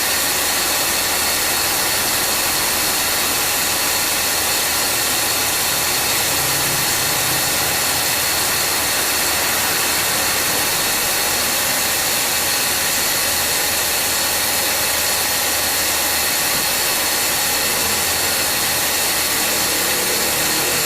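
2013 Subaru Forester 2.0T running with its air-conditioning compressor engaged, giving a loud, steady mechanical whine over the engine. The noise marks a heavily worn A/C compressor, which is also cooling very poorly.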